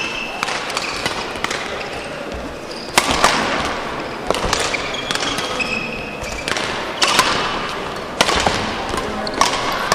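Badminton rally: sharp racket strikes on the shuttlecock about every second and a half, with short squeaks of shoes on the court floor, in a reverberant sports hall.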